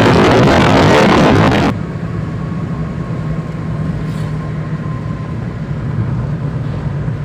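Loud rushing wind and road noise from a moving car, filmed out of the side window. About two seconds in it cuts abruptly to quieter, steady in-car road noise with a low engine hum.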